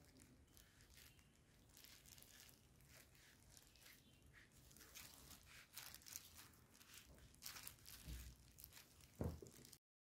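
Faint crinkling and rustling of disposable plastic gloves and a thin spring roll wrapper as the filling is folded and rolled up by hand, in many small scattered rustles. A soft knock comes near the end, then the sound cuts off abruptly.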